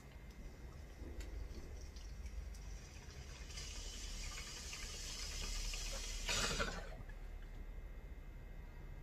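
Water bubbling in a tall glass beaker bong as smoke is drawn through it. The bubbling builds for a few seconds, then a short, louder rush comes about two-thirds of the way in as the bowl is pulled and the hit is cleared.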